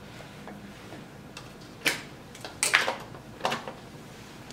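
A handful of short, sharp clicks and taps, spaced roughly a second apart, with the loudest a close pair about two-thirds of the way through.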